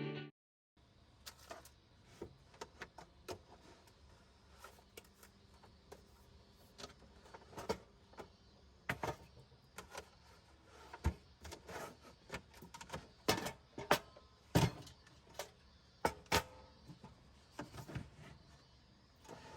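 Scattered small clicks, taps and knocks of objects being handled, irregular and growing more frequent in the second half, over a quiet background.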